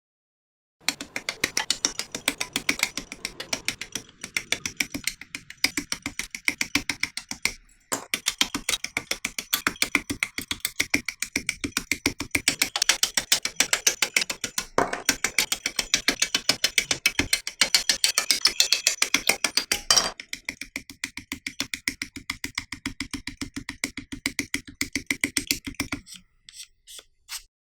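A plastic model kit part being sanded in quick, rhythmic rasping strokes. There is a short break about eight seconds in, the tone changes about twenty seconds in, and the strokes stop a little before the end.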